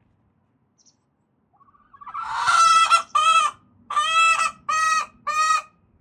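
Leghorn hen calling loudly before laying: one long squawk followed by four shorter squawks in a row, the pre-laying racket the breed is known for.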